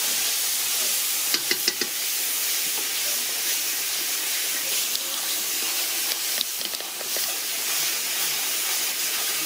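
Seasoned beans sizzling in oil in a large aluminium pot, stirred with a metal spoon. The spoon clinks against the pot a few times about one and a half seconds in.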